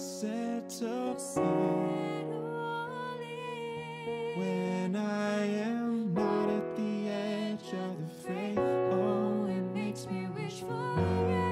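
A woman and a man singing together in harmony over piano chords, the chords changing every couple of seconds.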